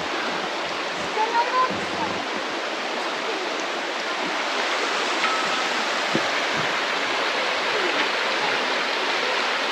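The Pełcznica, a small river, rushing steadily over its bed: an even, unbroken rush of flowing water.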